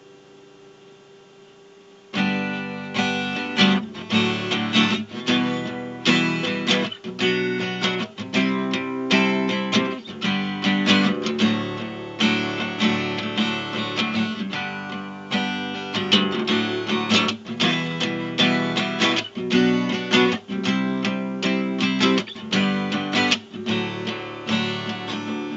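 Acoustic guitar strummed in a steady rhythm, starting suddenly about two seconds in after a faint ringing tone. It is recorded through a webcam microphone.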